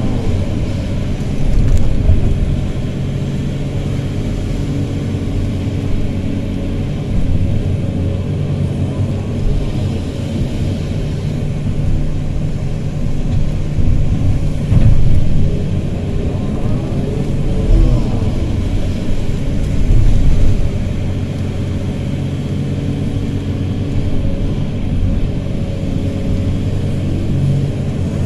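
Hydraulic excavator's diesel engine running steadily, heard from inside its cab, swelling under load several times as the machine swings and dumps buckets of sand into a dump truck.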